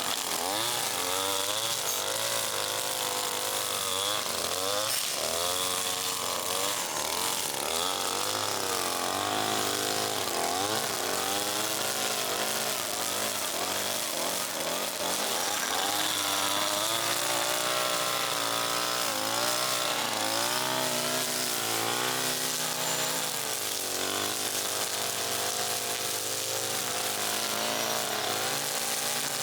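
A two-stroke chainsaw running and cutting tree limbs, its engine pitch rising and falling again and again as it revs into the cuts and eases off.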